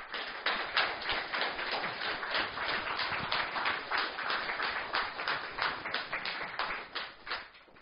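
Audience applause: many people clapping at once, starting suddenly and dying away near the end.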